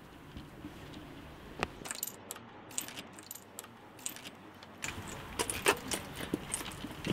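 Boot footsteps climbing concrete stairs: scattered light taps and scuffs, coming thicker in the last two seconds.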